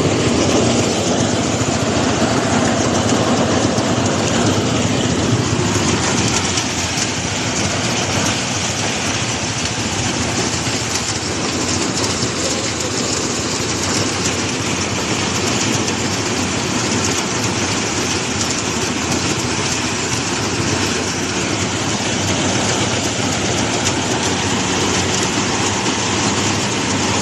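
Engine of a rice harvesting machine running steadily under a constant rushing noise, a little louder for the first six seconds.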